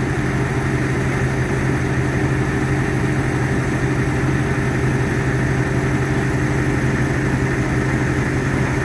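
An engine idling steadily, a low even hum that holds the same pitch and level throughout.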